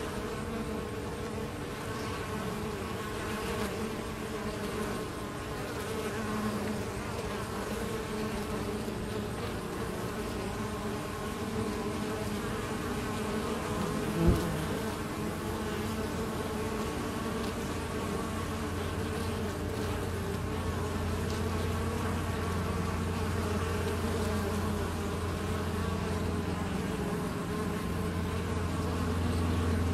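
Many honeybees buzzing as they fly in and out at a hive entrance, a steady hum of wings. A single sharp click comes about halfway through. A lower, deeper hum grows louder in the second half.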